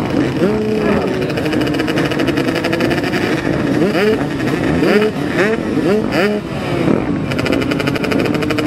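Dirt bike engines running at idle with quick throttle blips: a steady engine note, then a run of five or six sharp revs rising and dropping back through the middle.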